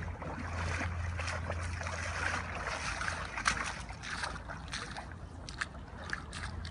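Shallow river water running over a gravel bar: a steady rushing hiss with scattered small splashes and ticks, over a constant low rumble.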